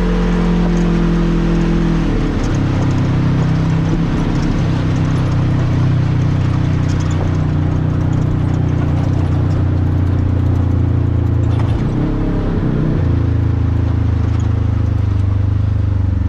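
Polaris RZR XP1000's parallel-twin engine running steadily while the side-by-side is driven along a trail, its pitch shifting a couple of seconds in and again near the end.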